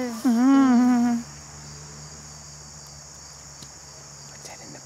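A loud, drawn-out human vocal cry, its pitch rising and then holding, breaks off about a second in. Under it and after it, crickets keep up a steady, high-pitched chirring.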